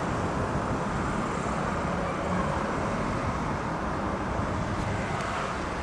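Steady road-vehicle noise, an even rumble with no distinct events.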